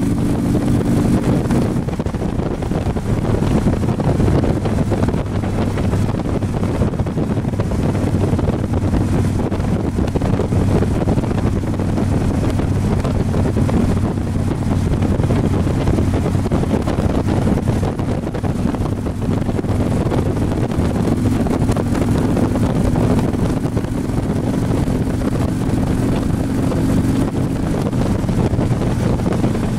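Touring motorcycle riding at road speed: a low engine drone under steady wind buffeting the microphone. The engine note drops to a lower hum about two seconds in and rises somewhat again later.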